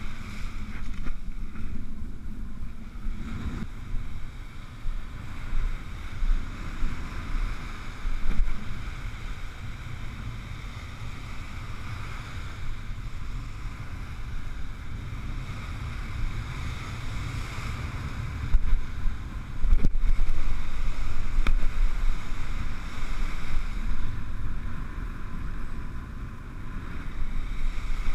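Stiff wind buffeting the microphone with an uneven low rumble, over the wash of breaking surf; the gusts are loudest about two-thirds of the way through.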